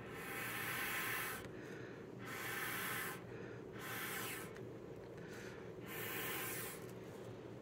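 Air blown through a flexible tube onto wet acrylic paint to push it across the canvas in a Dutch pour. It comes as four hissing puffs about a second long, with a shorter one between the last two.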